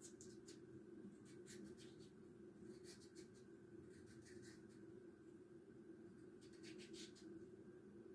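Faint, crisp cuts of a kitchen knife slicing through a peeled raw potato held in the hand, coming irregularly, a few at a time. A steady low hum runs underneath.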